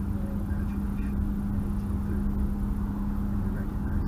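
Road noise inside a moving car's cabin, picked up by a windshield-mounted action camera's built-in microphone: a steady low rumble of tyres and engine with a constant low hum.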